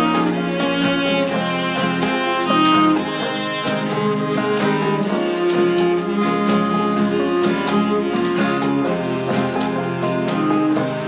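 Instrumental break of an acoustic folk song: bowed cello playing held melody notes over strummed acoustic guitar.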